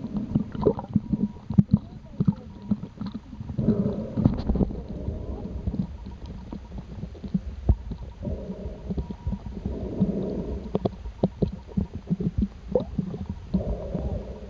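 Muffled underwater sound: a low rumble of moving water with many small clicks and knocks, and a few stretches of louder muffled noise.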